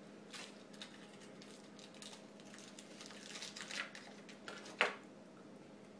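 Aluminium foil wrapper on a chocolate bar crinkling faintly as it is handled and unwrapped by hand, in short scattered spells, with a busier stretch in the middle and one sharper crackle near the end.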